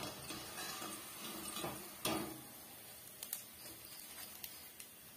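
Steel utensils clinking and scraping: a wire-mesh skimmer and slotted spatula knock against a steel kadai while lifting fried vadai out of the oil. There is one sharp knock about two seconds in, then a few lighter ticks.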